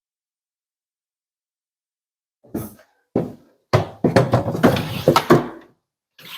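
Silence for about two seconds, then a few knocks and thunks from a small drawer cabinet being handled, followed by about two seconds of drawers being pushed and slid on their plastic tracks, freshly treated with paste wax.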